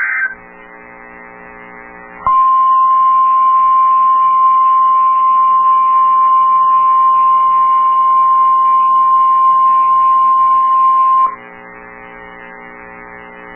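NOAA Weather Radio warning alarm tone (1050 Hz) sounding for the weekly test: one steady high tone that starts abruptly about two seconds in and cuts off after about nine seconds. Low radio hum sits before and after it.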